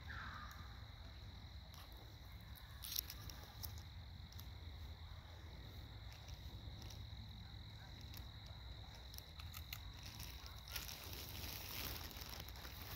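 Quiet outdoor ambience: a steady low rumble and a faint, steady high tone, with a single sharp tick about three seconds in. Near the end comes a rustling stretch, like footsteps or movement through grass and dry fallen leaves.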